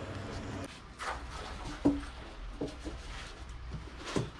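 Drink cans being handled: a few light clicks and knocks, then a sharper click about four seconds in as a can's pull tab is opened.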